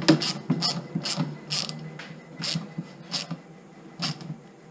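Socket ratchet wrench clicking in short bursts as it is swung back and forth to tighten a bolt, about eight bursts at uneven intervals of roughly half a second.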